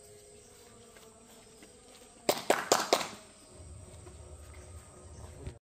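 Four sharp knocks in quick succession about two seconds in, over a faint background of insects, followed by a low rumble.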